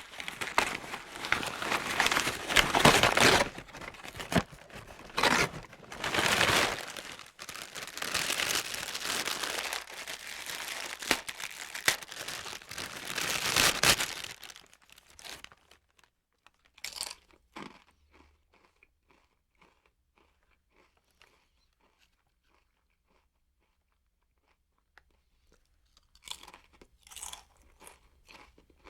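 Potato chips being bitten and chewed: dense, loud crisp crunching for about the first half, then sparse, soft chewing crackles with quiet gaps, and a few louder crunches again near the end.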